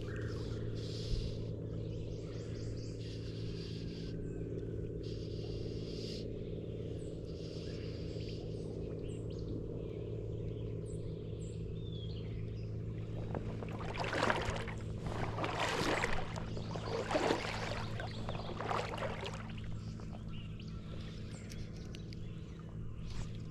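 A steady, unchanging low engine hum, with birds chirping over it and a few seconds of louder noise about two thirds of the way through.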